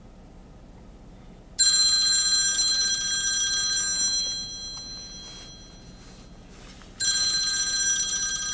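A phone ringtone rings twice with several bell-like tones, the first ring about a second and a half in and fading away slowly, the second starting about five seconds later. A steady low rumble of the moving car's cabin runs beneath.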